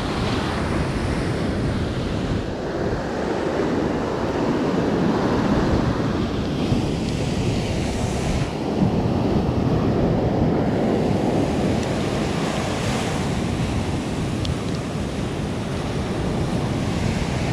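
Gulf surf breaking and washing up the sand at the shoreline, a steady rush of waves, with wind buffeting the microphone.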